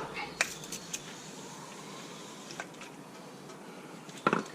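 A few faint clicks and light knocks, with one slightly louder short sound near the end, over a steady low hiss.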